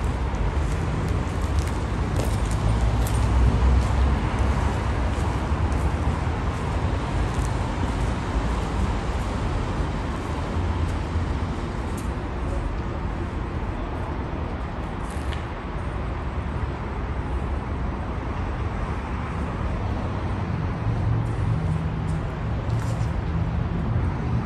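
Steady street noise outdoors in a city, mostly a low rumble of traffic with no clear single event.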